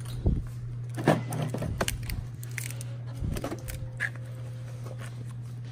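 Plastic-wrapped dog chew bones crinkling and rustling as they are picked up and handled, with a few short clicks and knocks, over a steady low hum.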